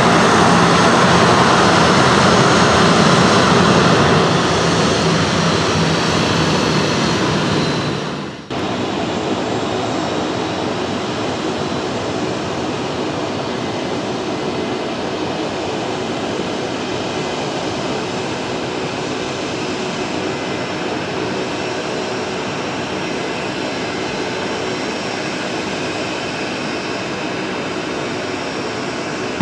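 Boeing 737-400 airliner's CFM56 turbofan engines running at taxi power as the jet rolls close past, the sound fading after a few seconds. About eight seconds in, the sound cuts to a steadier, more distant jet engine hum as the aircraft sits on the runway.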